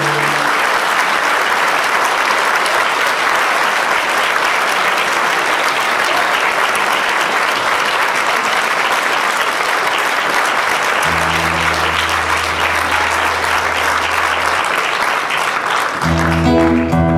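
Audience applauding steadily after a song. A low held note sounds for a few seconds past the middle, and near the end an acoustic guitar starts playing again.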